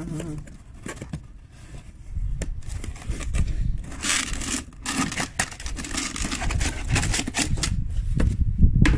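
Packaging being opened and handled to take out a replacement ignition cassette: scraping, crinkling and clicks over a low rumble that starts about two seconds in.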